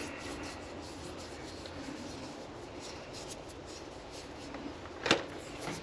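Eggs being handled: faint rubbing and light clicks of shells, with one sharp knock about five seconds in.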